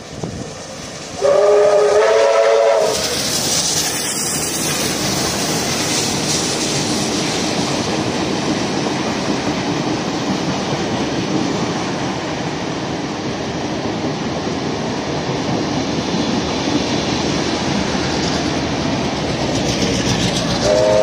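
Steam locomotive R766 passing close by with a train of carriages. A chord whistle blast of about a second and a half comes about a second in, then a loud rush as the engine goes by. This gives way to the steady rumble and clack of the carriages on the rails, with a second short chord blast near the end as the tail of the train passes.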